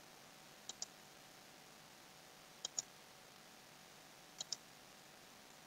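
Computer mouse clicking, faint: three click pairs, each a quick press and release, spaced about two seconds apart.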